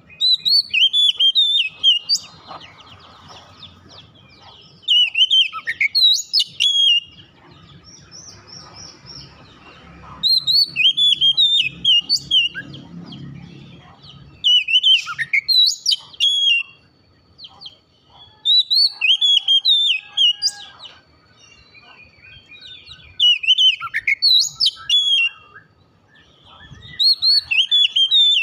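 Oriental magpie-robin (kacer) singing: loud, varied whistled song phrases of about two seconds each. The phrases repeat about every three to four seconds with short pauses between, seven in all.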